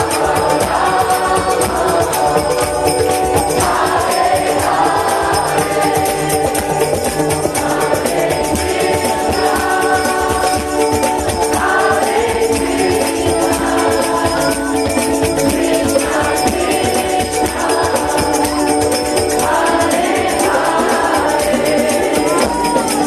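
Kirtan: many voices singing a devotional chant together, over a harmonium and a fast percussion beat.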